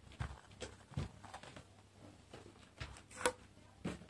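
Faint rustles and light taps of a folded cardstock snowman model being handled and turned, with a sharper click about three seconds in.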